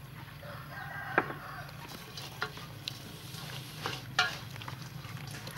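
Salt being spooned onto and rubbed by hand into whole raw chickens in a stainless steel bowl: a steady moist rubbing and rustling, with a few sharp clicks at about one, two and a half, and four seconds in.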